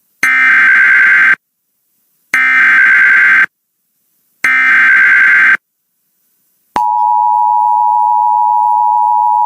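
Emergency Alert System SAME header: three identical bursts of warbling data tones, each about a second long and a second apart. After a short gap comes the steady two-tone attention signal, which carries on to the end. Together they herald a National Weather Service severe thunderstorm warning.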